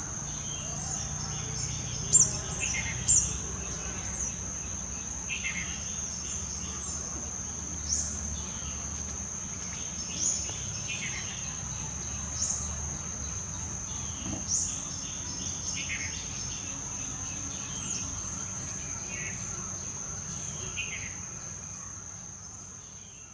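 Steady high-pitched insect drone, broken every second or two by short falling chirps, the loudest about two and three seconds in. The sound fades out at the end.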